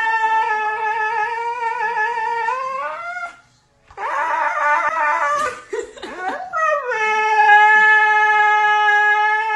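A dog howling: two long, steady howls of about three seconds each, the first rising at its end and the second sliding down into a held note, with shorter yelping cries between them.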